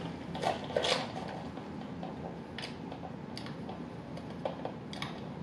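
Drinking soda through a straw from a paper fast-food cup: a handful of short, quiet sips, swallows and clicks spread over several seconds.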